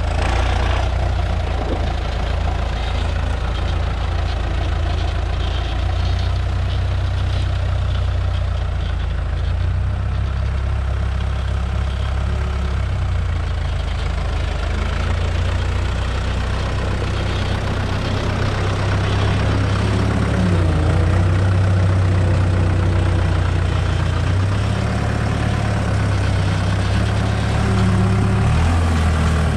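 A UTB Universal tractor's diesel engine running steadily, with its pitch rising and falling in the second half as engine speed changes.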